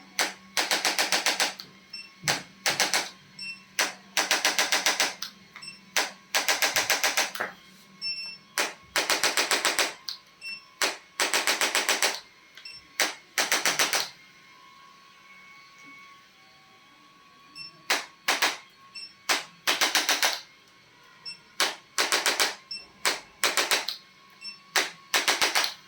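Handheld percussion instrument firing short bursts of rapid clicks against the body, each burst lasting about half a second to a second, in irregular series with a pause of a few seconds about midway.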